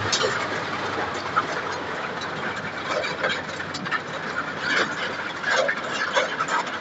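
Muddy floodwater rushing down a street: a steady noisy rush with constant irregular splashing and gurgling.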